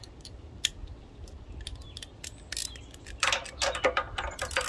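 Hand tools clicking and tapping on metal, then from about three seconds in a fast run of ratchet clicks as the bolts holding the pressure washer pump to its engine are worked loose.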